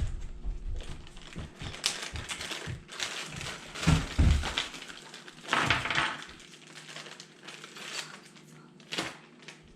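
Parts and packaging being handled: rustling, crinkling and scattered clicks and knocks. The loudest knocks come about four seconds in, followed by a longer rustle near six seconds.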